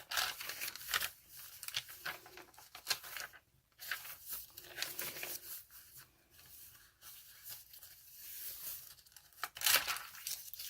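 Paper pages of a handmade junk journal rustling and crinkling as they are turned and handled: a string of short rustles, the loudest a little before the end.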